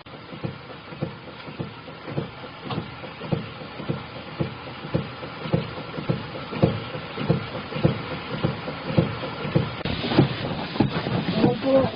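Mechron 2450 utility vehicle running, a steady hum under a regular knock about twice a second that grows louder, with a brief clatter near the end.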